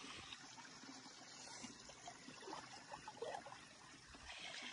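Faint trickling of a shallow stream running over rocks, with a few small splashes about three seconds in as feet are washed in the water.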